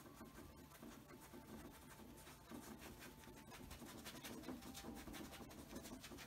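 Faint scratchy brushing of a paintbrush on canvas, many quick strokes, busiest in the second half.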